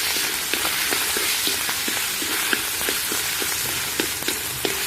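Minced meat sizzling in hot garlic oil in a pan as it is stir-fried, with a metal spatula tapping and scraping against the pan about three times a second.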